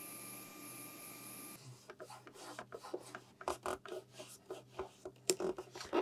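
A faint steady whine and hiss from the air-hose nozzle cleaning the Xbox Series X fan stops about a second and a half in. A run of irregular clicks, taps and rubbing follows as hands handle the console's plastic casing.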